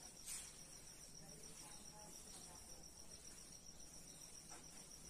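Near silence, with a faint steady high-pitched pulsing trill throughout. A short swish of a cloth duster wiping the whiteboard comes about a third of a second in, and a fainter one near the end.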